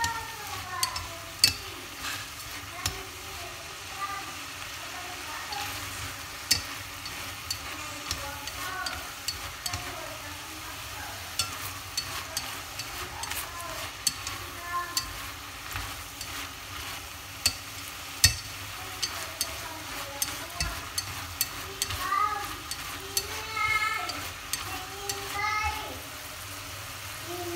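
String beans and meat sizzling as they are stir-fried over high heat in a stainless steel pot. Chopsticks click and scrape against the pot's side at irregular moments throughout.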